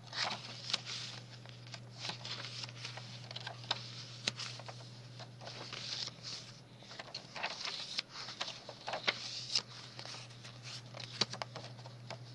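Paper and card rustling, with small irregular taps and crinkles, as the pages, tags and pockets of a handmade paper journal are handled and turned.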